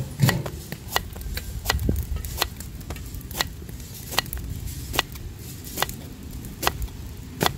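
Chopping: about ten sharp knocks of a blade, evenly spaced roughly every three-quarters of a second, over a low background rumble.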